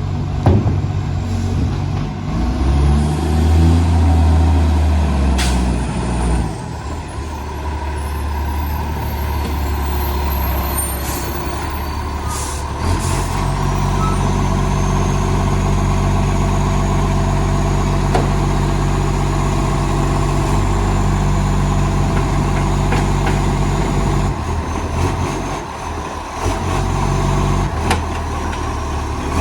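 Recycling garbage truck's diesel engine running and revving, deep-sounding from a massive exhaust leak, with the revs climbing a few seconds in. Short hisses of air brakes at times.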